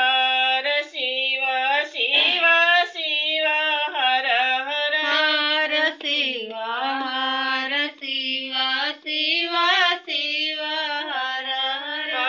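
A woman singing a devotional bhajan solo into a microphone, her voice gliding and ornamented in long, unbroken phrases.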